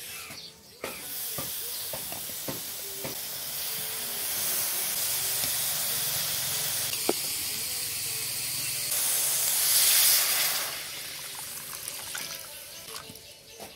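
Whole fermented fish (fish ngapi) hissing in a hot metal wok after a few knocks as they go in. About nine seconds in, water poured into the hot wok gives a louder rushing sizzle for a second or two, then settles to a quieter hiss as the ngapi starts to boil in the water.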